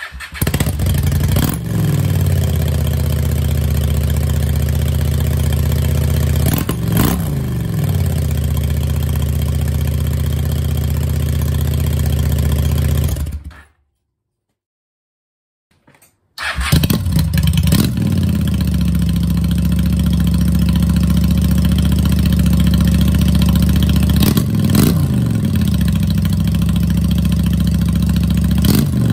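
Honda Shadow 600's V-twin engine starting and idling, with a few short throttle blips. It goes silent about halfway through, then starts again and runs on with more quick blips.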